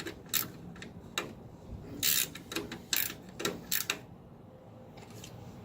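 Ratchet wrench clicking in short bursts, about seven strokes, as it tightens the nut on a lawn tractor light switch; the clicking stops about four seconds in.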